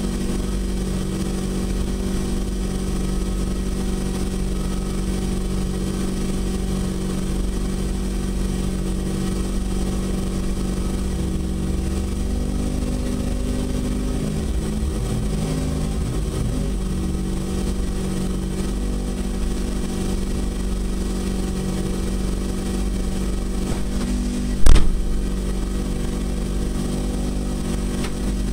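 Nissan 100NX Turbo rally car's SR20DET turbocharged four-cylinder engine idling steadily, heard from inside the stripped cabin. The idle wavers slightly around the middle, and a single short, loud burst comes near the end.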